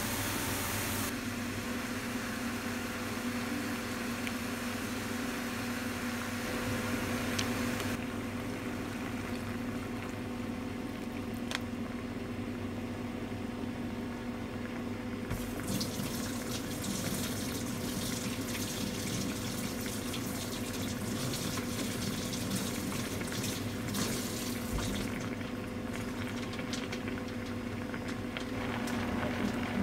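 Spicy sea eel stir-fry bubbling and simmering in a frying pan over a steady low hum, the sound changing character at a few points.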